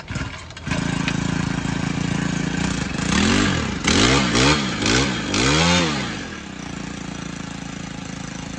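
Makita four-stroke brush cutter engine starting, catching under a second in and idling steadily. It is then revved four times in quick blips and drops back to idle.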